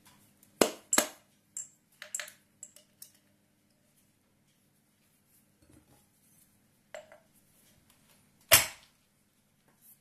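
Sharp metallic clinks and knocks from brass water-meter parts and a steel punch being handled and set down on a wooden workbench: two loud knocks in the first second, a few lighter clicks after them, and the loudest knock near the end.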